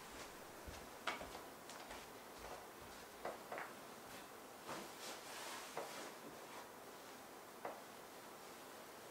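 Soft footfalls on tatami and rustling cloth as folded kimono are carried in and laid on a low wooden table, with a few light knocks spread through.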